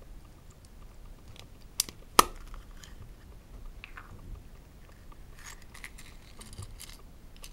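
Hard plastic toys handled on a table: two sharp clicks about two seconds in, then crinkling and crackling as a folded paper leaflet is pulled out of a yellow plastic Kinder Surprise capsule.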